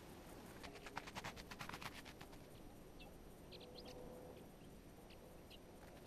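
Faint short, high chirps of small songbirds, several over a couple of seconds, following a quick run of about a dozen soft crackling ticks near the start.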